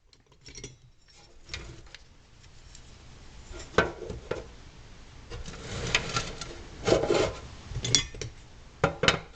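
Box of loose hardware being handled: irregular rubbing and scraping with several sharp knocks, busier in the second half.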